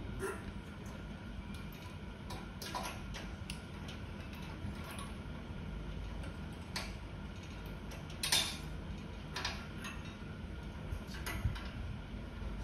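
Scattered small clicks and light metal clinks of parts being handled inside an opened gas stove, the sharpest about eight seconds in, over a steady low hum.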